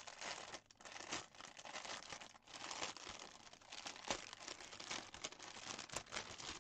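Thin clear plastic bag crinkling and rustling in the hands as it is handled and opened to get at a bundle of embroidery floss, an irregular run of small crackles.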